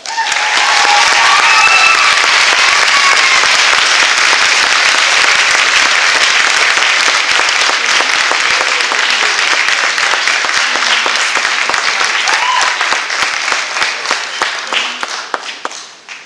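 Audience applauding, with a few shouted cheers in the first seconds. The applause thins to scattered claps and dies away near the end.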